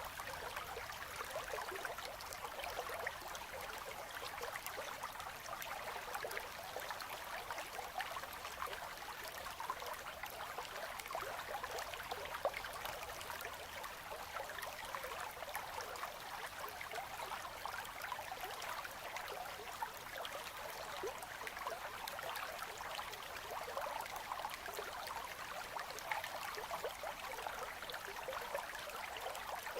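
Quiet river current flowing in ice, a steady rush of water with many small splashes and trickles.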